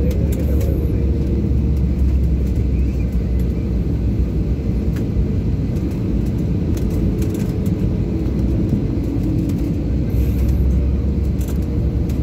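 Jet airliner cabin noise heard from a window seat: a steady low rumble of engines and rushing air, with a faint steady hum running under it.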